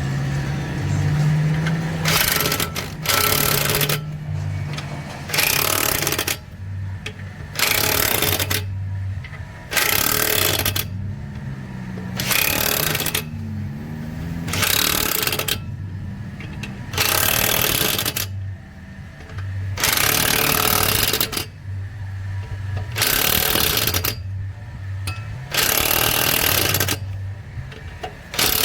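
Electric impact wrench hammering lug nuts tight in short bursts of about a second, roughly one every two seconds, moving from nut to nut in a crisscross pattern to seat the wheel evenly.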